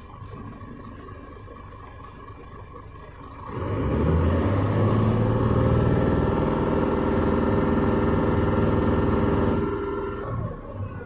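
Scania truck diesel engine idling, then revved up about three seconds in to high idle (around 2400 rpm), held steady there for about six seconds, and let fall back to low idle (around 500 rpm) near the end. This is the low- and high-idle run for an engine oil pressure check.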